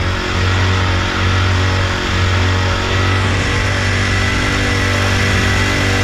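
Small gasoline outboard motor on a kayak running at a steady throttle, pushing the kayak along, with water and wind noise beneath it.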